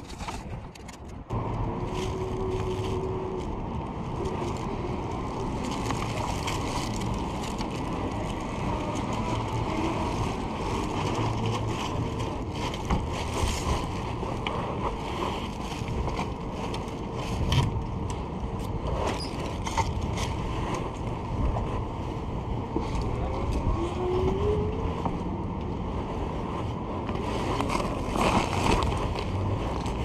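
Steady rushing noise and street traffic while riding an e-bike in city traffic, with scattered clicks and knocks. A short steady tone sounds about two seconds in, and a brief rising tone near the end.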